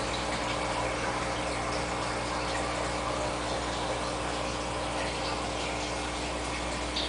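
Aquarium filtration from an Eheim 2128 canister filter and an AquaClear 110 hang-on-back filter running: steady water trickling and splashing over a constant pump hum.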